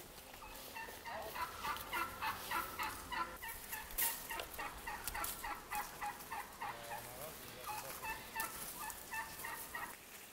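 Farmyard poultry calling in quick runs of short, pitched notes, several a second, with a brief pause a little past the middle.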